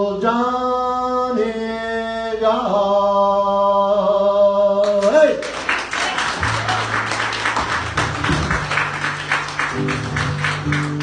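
A man singing unaccompanied, holding the long final notes of an Irish folk song. About five seconds in, the sound cuts to instrumental music with a fast strumming rhythm and steady bass notes.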